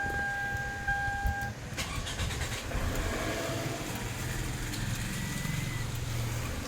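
A steady electronic beep lasts about a second and a half. Then a Toyota Camry ACV40's four-cylinder engine cranks briefly, starts and settles into a steady idle.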